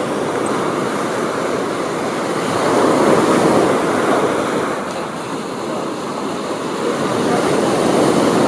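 Ocean surf breaking and washing up a sandy beach, swelling about three seconds in and again near the end.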